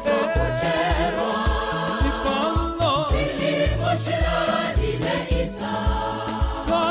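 Church choir singing a gospel song in harmony over instrumental accompaniment with a steady, repeating bass line.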